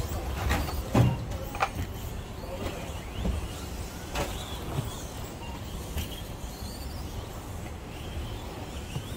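Electric radio-controlled stadium trucks racing: faint motor whines rising and falling, and a few sharp knocks as trucks land and bump, the loudest about a second in, over a steady low rumble.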